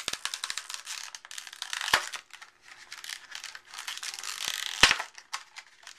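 Stiff clear plastic bulb packaging crinkling and crackling as it is worked by hand, with two sharp knocks, one about two seconds in and a louder one near five seconds.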